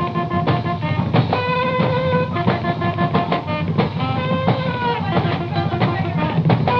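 Punk rock band playing an instrumental passage between sung lines: held, buzzy melody notes over a fast, steady drum beat, with a dull, narrow sound.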